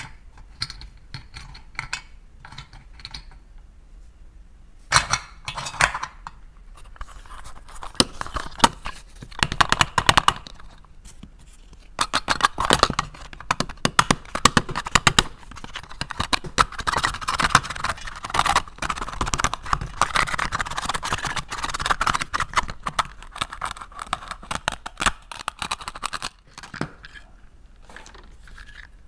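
Pink plastic toy knife cutting a yellow toy fruit held together with Velcro on a plastic plate: scattered plastic clicks and taps at first, then from about the middle a long crackly rasping as the Velcro halves tear apart.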